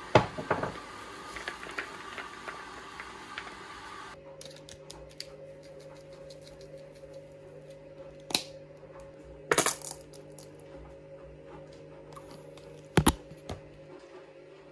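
A metal spoon and a small bowl clinking against a glass mixing bowl of potato salad, a few sharp clinks: two near the start and three spread through the second half, over a faint steady hum.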